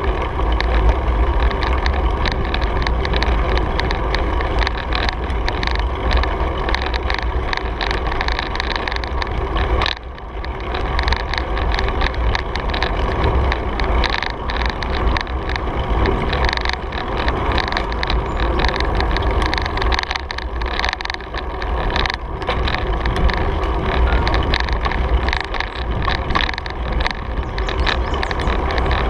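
Bicycle riding on a paved trail, heard through a handlebar-mounted camera: a steady deep rumble of wind on the microphone and tyres on asphalt, with continuous fine rattling from the bike, dipping briefly about ten seconds in.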